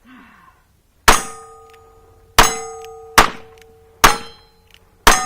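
Five gunshots about a second apart, each followed by a steel target ringing from the hit.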